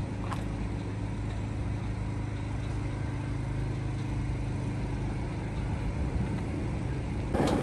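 A steady low engine hum, like a motor vehicle running or idling. A louder, broader rush of sound comes in just before the end.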